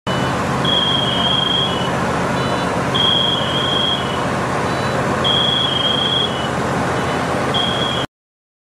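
Fire truck engine running with a steady mechanical hum, and over it a high-pitched electronic alarm sounding a short stepped tone pattern about every two seconds. The sound cuts off sharply near the end.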